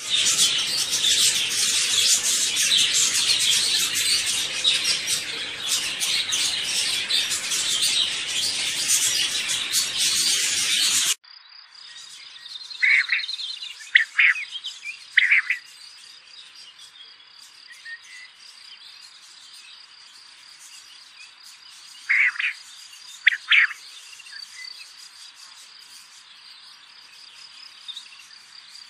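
A loud hissing noise for about the first eleven seconds, which cuts off suddenly. Then a steady high cricket trill with a few short bird chirps in two small groups.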